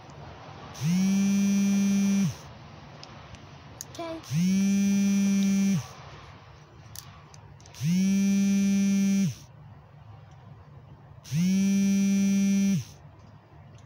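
A small motor buzzing in four regular spurts, each about one and a half seconds long and repeating every three and a half seconds, rising in pitch as it starts and dropping as it stops.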